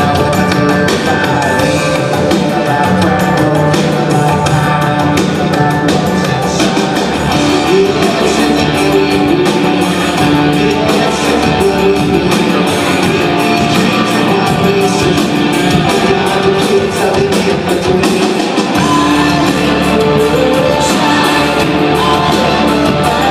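Rock band playing a song, with guitar, drum kit and singing, at a steady loud level.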